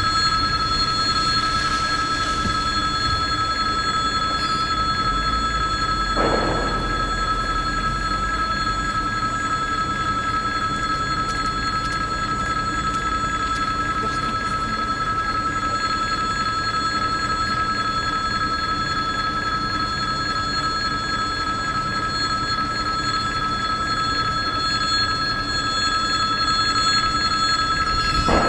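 Russian level-crossing warning bell ringing continuously while the crossing is closed, a steady electric ringing that holds unbroken throughout.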